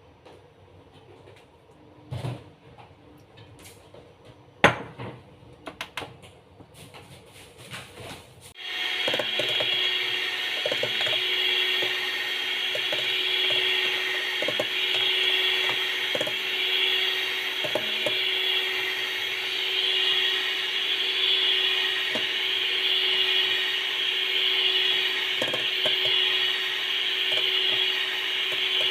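A few knocks, then about nine seconds in an electric mixer starts up and runs steadily, beating ingredients for a cake.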